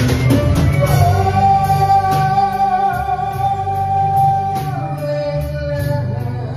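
A woman sings a slow song through a microphone and PA, backed by music with a steady cymbal beat. About a second in she holds one long note, then drops to a lower note near the end.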